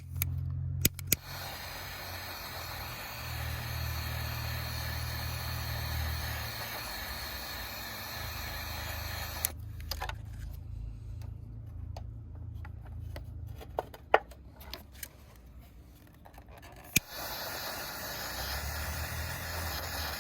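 Small handheld torch flame hissing steadily, shrinking heat-shrink tubing over spliced headlight wiring. It runs from about a second in to about halfway, stops with a few sharp clicks in the pause, then hisses again near the end.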